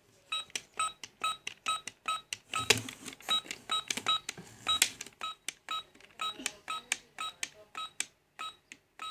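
Toy juicer-blender's electronic beeping: short high-pitched beeps repeating about three times a second, with a couple of sharp knocks from handling the toy.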